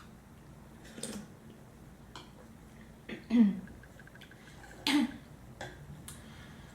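A woman coughing, three coughs about two seconds apart with the middle one loudest, as food goes down the wrong pipe.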